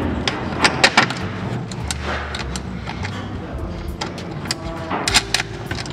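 Sharp plastic clicks and rattles of wiring connectors and cables being handled in an electric car's front compartment, clustered a little before a second in and again around five seconds in, over a steady low hum.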